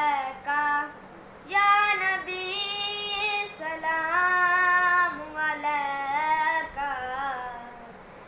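A boy singing a naat, an Urdu/Punjabi devotional song in praise of the Prophet, solo and unaccompanied. Long, held, ornamented phrases with short breaths between them, the first pause about a second in.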